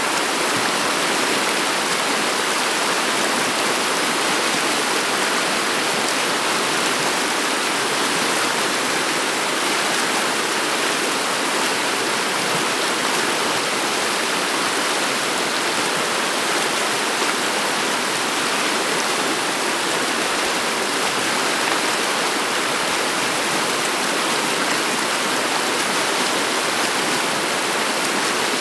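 Shallow river water flowing over a bed of pebbles and stones: a steady, even rush of water.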